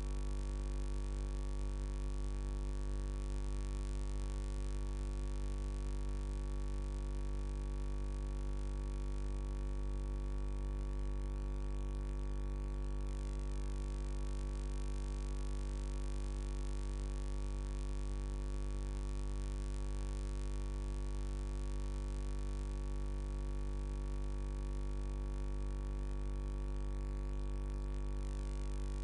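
A steady, unchanging low hum with a stack of higher overtones above it.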